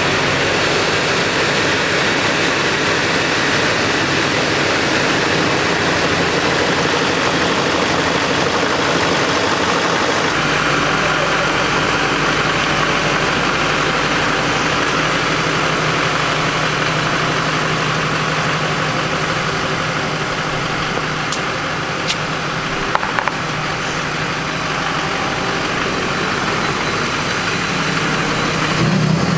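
Diesel pickup truck engine idling steadily. About ten seconds in, its low rumble becomes deeper and stronger.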